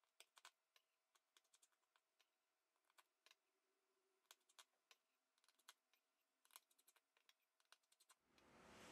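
Near silence, with a few very faint clicks of a precision screwdriver taking out the small screws of a phone's middle frame.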